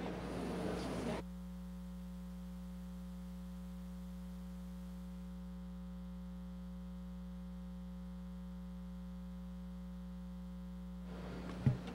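Steady electrical mains hum on the broadcast sound feed, a low buzz with many overtones, while the room sound drops out about a second in. The room noise comes back near the end with a single sharp knock.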